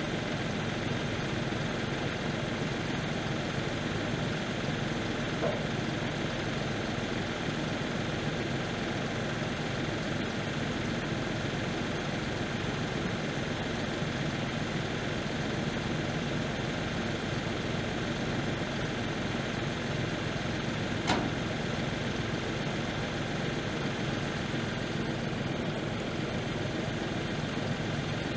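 New Holland tractor engine idling steadily while its front loader holds a pickup bed. A single sharp knock about three-quarters of the way through.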